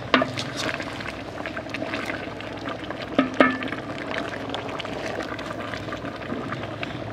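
Goat meat sizzling and bubbling in a large aluminium pot as a wooden spoon stirs it, with many small pops. The spoon knocks against the pot with a short ringing clank just after the start and twice more about three seconds in.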